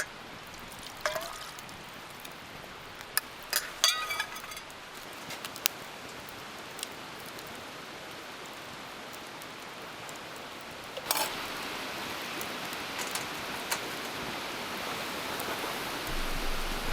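Steady rushing of wind, with scattered light clicks and a brief metallic clink about four seconds in; the rushing grows louder about eleven seconds in.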